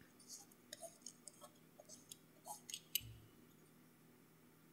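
Faint handling sounds as a rubber case-opener ball twists the screw-down steel case back off a Rolex Datejust: small squeaks, rubs and light clicks, with one sharper click about three seconds in.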